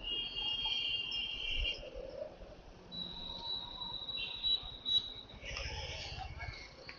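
Street traffic at a stop at a city intersection, with high steady tones: a cluster for the first second and a half or so, then a thinner, higher tone from about three to five seconds in.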